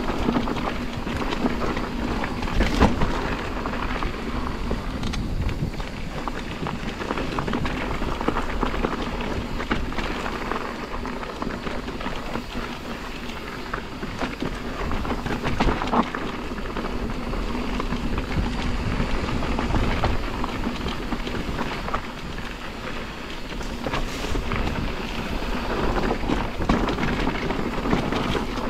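Mountain bike rolling fast down a dirt trail: steady tyre and wind noise, with sharp knocks as the bike hits bumps, the loudest about 3 seconds in.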